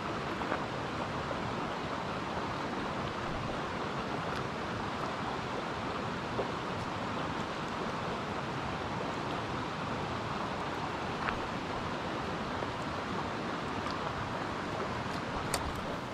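Steady outdoor rushing noise, with a few faint short clicks scattered through it.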